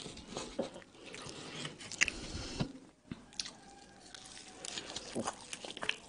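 Close-miked eating sounds of Egyptian hawawshi, a toasted flatbread stuffed with minced meat: crisp crackling bites into the crust and wet chewing, with a brief lull about three seconds in.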